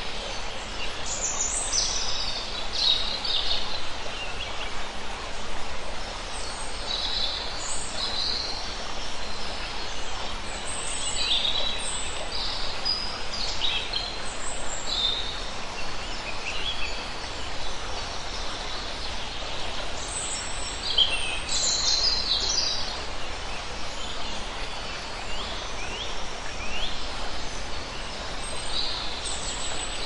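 A forest stream running over rocks, a steady wash of water, with many birds calling and chirping over it in short, scattered phrases.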